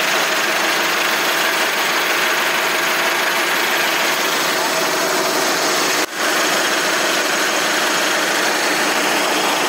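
Steady machine noise from a running snack-food extrusion line: the extruder and line machinery working, with faint steady tones through the noise. The sound breaks off briefly about six seconds in, then carries on.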